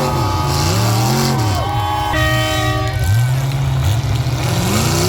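Demolition derby trucks' engines revving up and down over and over, with a horn sounding one steady blast of just under a second about two seconds in.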